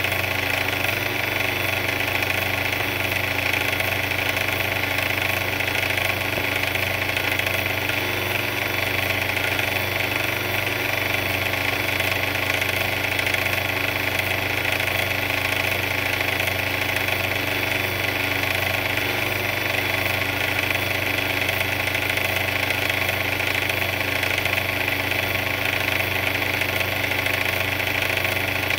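Big yellow mixer running steadily, a constant motor hum with a steady higher whine and no change in speed.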